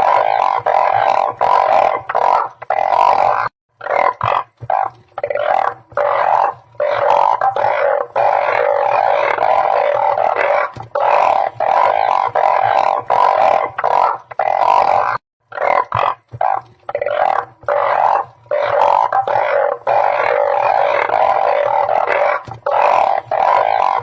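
A dense chorus of blunt-headed burrowing frogs (Glyphoglossus molossus, 'ueng phao') calling, many low droning calls overlapping, with brief breaks about three and a half and fifteen seconds in.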